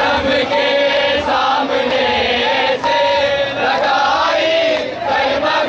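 Men's voices chanting a Muharram lament (nauha) in a crowd, one leading voice carrying a wavering, drawn-out melody over the others.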